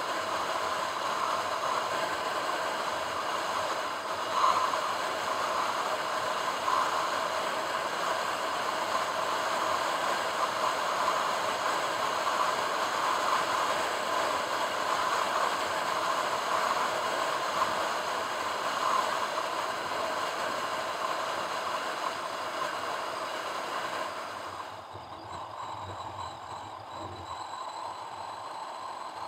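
Car driving on a paved road: steady road and tyre noise with a few steady tones running through it. About three quarters of the way through it gets quieter and duller.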